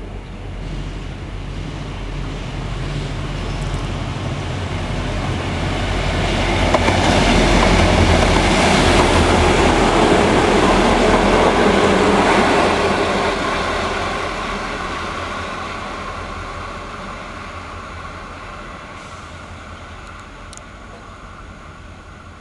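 A freight train hauled by EMD G16 and G26 diesel-electric locomotives passes at speed. The engines and the wheels on the rails build to a peak about a third of the way in, then fade steadily as the wagons run past and away.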